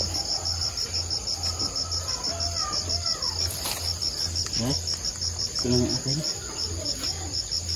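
Crickets chirping in a fast, even, high-pitched pulse that runs on without a break.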